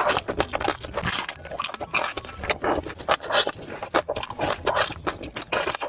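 Close-miked eating sounds: chewing and biting, with irregular sharp crunches and wet mouth clicks.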